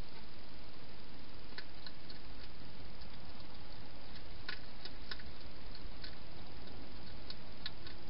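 A wild hedgehog eating at a food bowl: scattered small crunching clicks, a few louder near the middle, over a steady hiss.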